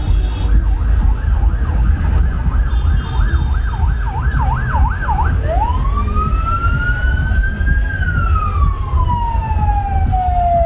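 Electronic siren sounding a fast yelp, about three to four warbles a second, for around five seconds. It then switches to a slow wail that rises and falls away. A heavy low rumble runs underneath.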